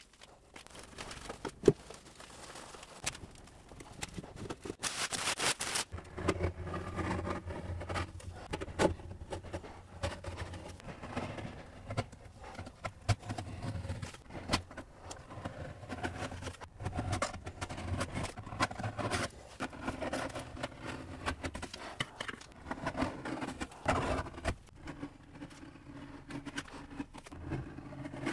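A metal putty knife scraping softened, stripper-soaked paint off wooden drawer fronts, in short repeated scrapes and clicks. A steady low hum runs underneath from about six seconds in, and a brief hiss comes just before it.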